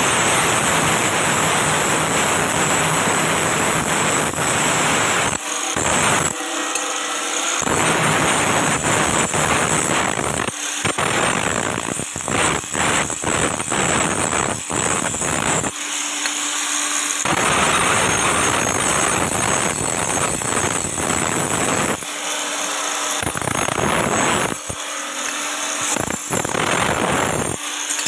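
A power tool runs loudly. Every few seconds its deeper part drops away briefly and then returns.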